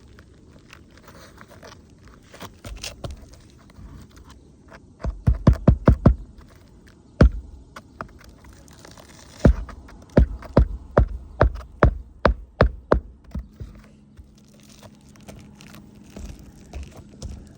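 Hammer driving roofing nails through a shingle: a quick run of about five strikes, a single strike, then a run of about ten strikes at roughly three a second. Lighter scraping and clicks of the shingle being handled around them.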